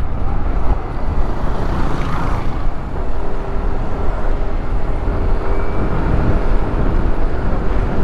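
Motorcycle riding along a road: the engine running under heavy, buffeting wind noise on the bike-mounted microphone, with a faint steady hum coming through in the middle.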